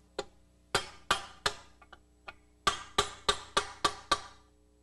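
Hammer striking a chisel against the collapsed outer steel sleeve of a lower control arm bushing, driving it out of the arm's bore. About ten sharp metallic strikes, roughly three a second, each with a short ring, with a brief lull about halfway through.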